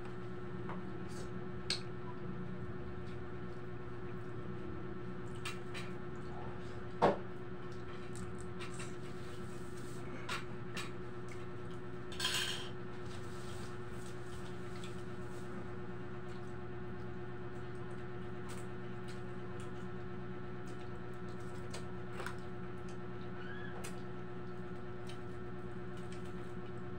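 Plates and utensils clinking now and then while people eat, the sharpest clink about seven seconds in. A steady low hum runs underneath.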